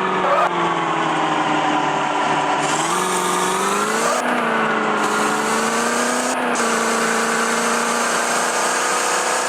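Maruti Suzuki Eeco van's engine running under changing throttle, the revs sinking and then climbing several times, with a sharp drop in pitch about two-thirds of the way through.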